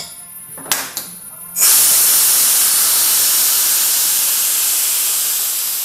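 Compressed air hissing out through the ball valve of a homemade welded fuel tank, releasing the pressure-test air. A small click, then about a second and a half in a sudden loud hiss that slowly fades.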